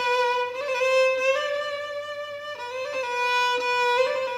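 Solo violin bowed in Moroccan Andalusian style, playing an unaccompanied introduction of long held notes that step and slide from one pitch to the next.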